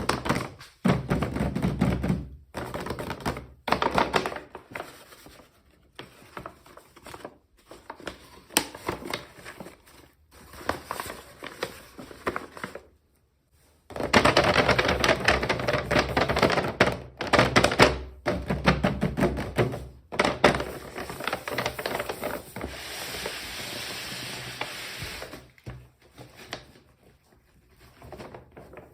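Hands unboxing small plastic toy packaging: irregular knocks, clicks and rustling in bursts with short pauses, and a steadier rustle or hiss for a few seconds after the middle.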